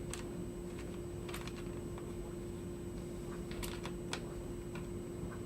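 Apple Wireless Keyboard being handled, giving a few scattered light clicks at irregular intervals. A steady low hum sits underneath.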